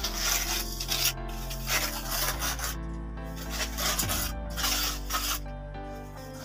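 Trowel scraping and smoothing wet cement render in irregular strokes, about one every half second to a second, over background music with held bass notes.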